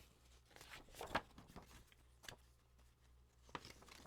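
Faint rustling and a few light taps of comic books and paper being handled, the sharpest tick just over a second in.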